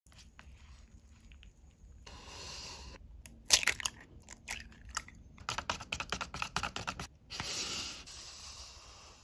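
An egg cracked open by hand: a sharp crack of the shell about three and a half seconds in, then a run of crisp crackles as the shell is pulled apart. Short stretches of steady hiss come before and after.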